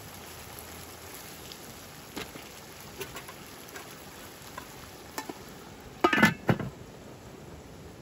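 Vegetable and meat stew sizzling and bubbling in a large pan over a campfire while a spatula stirs it, with small scrapes and clicks against the pan. About six seconds in comes a louder clatter as the metal lid is set onto the pan.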